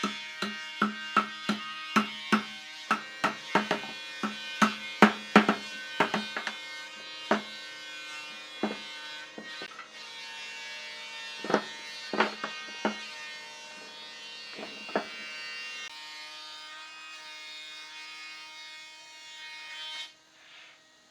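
A series of sharp knocks, like tool blows on wood, about two a second for the first seven seconds and then more sparse, over a steady buzzing hum.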